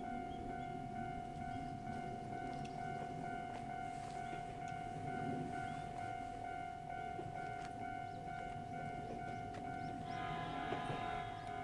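Japanese railway level-crossing alarm ringing its steady, repeating electronic bell over a low rumble. About ten seconds in, a brighter cluster of higher tones joins as the Ryutetsu 5000 series train comes near.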